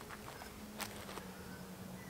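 A flying insect buzzing steadily at one pitch, with a few light rustles and a tap of gear being handled, one a little under a second in.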